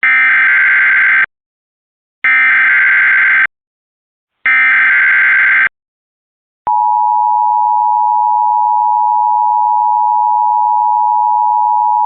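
Emergency Alert System SAME header: three harsh bursts of data tones, each a little over a second long, about a second apart. The steady EAS attention tone starts about a second and a half after the last burst, announcing a tornado warning.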